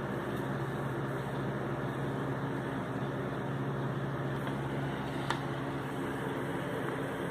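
Steady hum and whirr of a desktop computer's cooling fans running, with one faint click about five seconds in.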